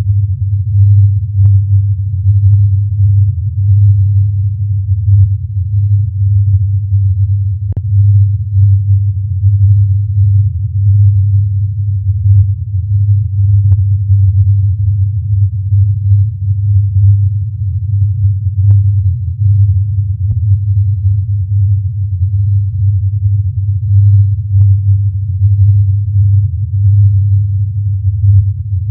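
Recording presented as the Taos Hum: a steady deep hum whose loudness wavers slightly, with a few faint clicks, the plainest about eight seconds in. The Hum is a persistent low-pitched sound of unknown origin, often likened to a diesel engine idling in the distance.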